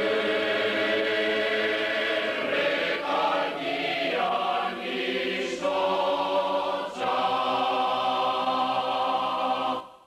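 Background music of a choir singing long held chords, moving to a new chord several times, then fading out at the very end.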